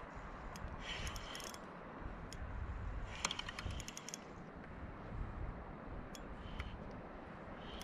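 Small spinning reel on a light rod ticking and clicking in short clusters, about a second in and again about three seconds in, as a fish is played slowly on the line, over a faint low wash of water.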